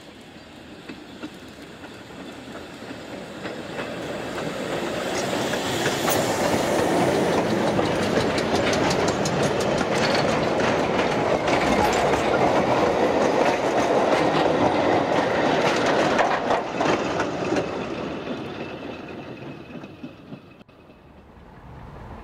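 Narrow-gauge steam train of wooden vans and wagons passing close by, its wheels clicking over the rail joints. It builds up, is loudest for about ten seconds as the wagons go past, then fades away near the end.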